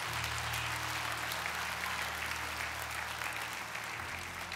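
Church congregation applauding in response to a sermon point, with a low steady tone underneath that changes pitch about four seconds in.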